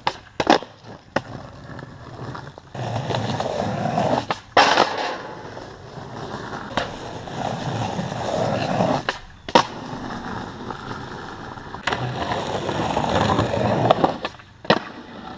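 Skateboard's urethane wheels rolling over rough concrete, broken by several sharp wooden clacks as the board is popped and lands during kickflip attempts.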